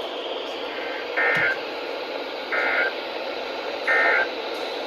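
NOAA Weather Radio EAS end-of-message: three short bursts of SAME digital data tones, about 1.4 s apart, over steady radio receiver hiss. The three bursts mark the end of the alert message.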